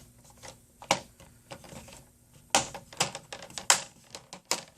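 Plastic laptop screen bezel being pressed onto the lid, its clips clicking into place in a scattered series of sharp clicks, busiest from about two and a half seconds in.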